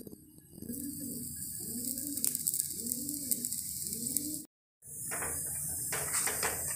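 Oil sizzling on a hot tawa under a paratha, with a bird cooing over and over in the background, about one coo every two-thirds of a second. The sound cuts out for a moment past the middle. Then the sizzling goes on with a spoon scraping over the paratha.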